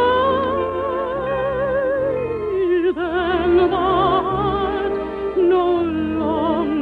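Operetta singing with wide vibrato over orchestral accompaniment, from an early-1950s radio broadcast recording with a dull, narrow sound. The melody steps down in pitch about three seconds in.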